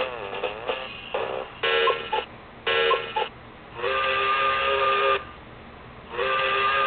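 Nickelodeon alarm clock playing its electronic alarm sound effects through its small speaker. A wavering tone comes first, then three short tones, then two long steady tones about a second and a half each, with short pauses between them.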